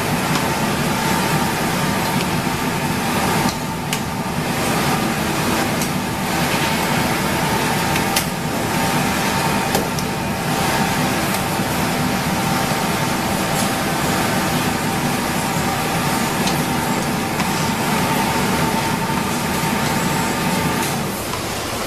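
A steady mechanical drone with a faint high whine and a lower hum, with a few light clicks.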